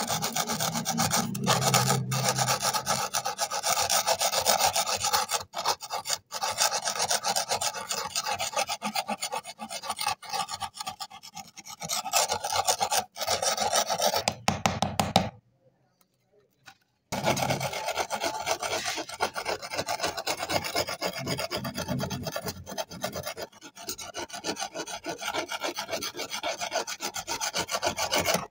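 A flat-tipped metal scraper scraping thick crusted rust off a very rusty antique knife blade in quick repeated strokes, a gritty rasping as the rust flakes away. It stops for about a second and a half a little past the middle.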